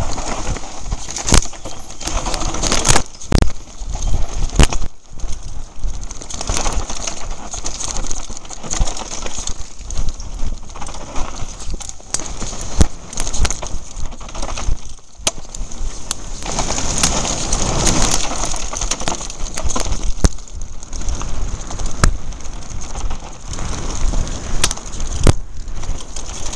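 Mountain bike descending a rough dirt trail at speed: a steady clatter and rattle of the bike over roots and stones, with tyres on dirt and frequent sharp knocks from hits on bumps.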